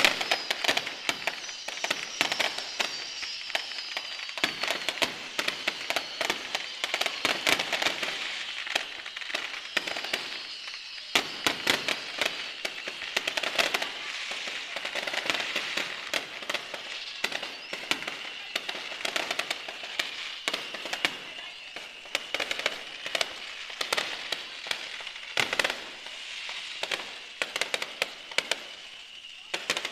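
Aerial fireworks going off in a continuous barrage: shells bursting with many rapid, irregular pops and crackles.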